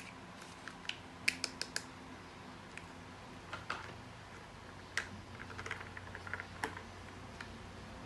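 Irregular light clicks and taps of small hard objects, with a quick run of four clicks about a second and a half in and a looser patter of clicks later on.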